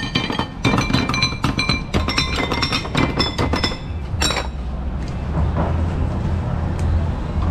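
Metal ladle clinking against ceramic soup bowls as broth is dished out, in a quick run of ringing clinks that stops about four seconds in. After that, a steady low hum.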